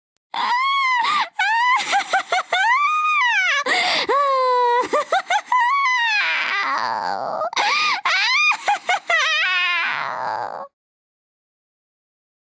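A witch's shrill cackling laugh, a very high voice swooping up and down in quick stuttering runs, stopping abruptly about ten and a half seconds in.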